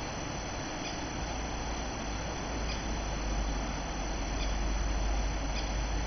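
Male crested kingfisher calling for its mate with a few short, faint, squeaky notes every second or two, over steady rushing background noise.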